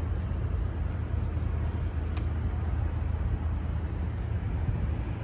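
A steady low rumble of outdoor background noise, with a faint click about two seconds in.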